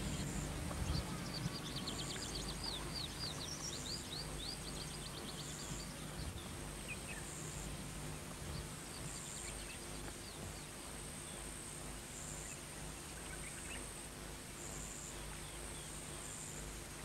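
Natural outdoor ambience: a bird calling in quick repeated chirps over the first few seconds, then fainter scattered calls, with a faint high call repeating every second or so over a steady low background noise.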